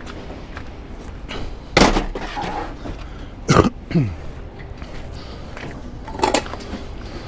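Three loud knocks and clunks about two seconds apart as heavy equipment is handled, with a short falling scrape just after the middle one.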